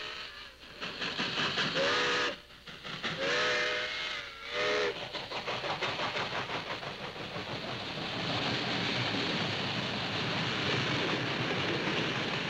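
Steam locomotive whistle sounding several tones at once, blown three times: a short blast, then two longer ones. Then the steady rumble and fast rhythmic clatter of the passing train's wheels on the rails.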